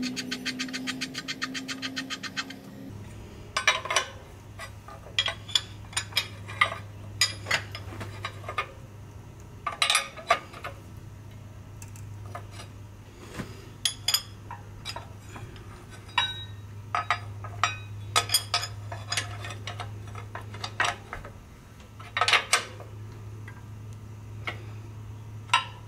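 Steel combination wrench clinking and ticking against the frame-rail bolts and cast-iron frame of a Ford 4000 tractor as the bolts are snugged up, a series of short irregular metallic clinks. For the first two to three seconds a loud steady hum with many overtones runs under it, then stops.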